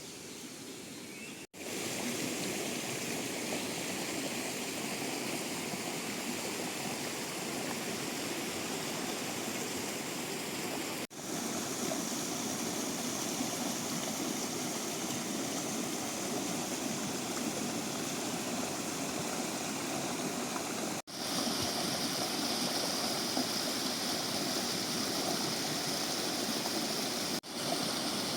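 Steady rushing water of a mountain stream, heard across several joined clips, with brief drops to silence at the cuts about 1.5, 11, 21 and 27 seconds in.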